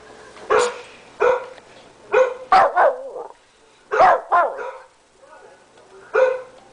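Shih tzu barking repeatedly: about eight sharp barks, some single and some in quick pairs, with short pauses between.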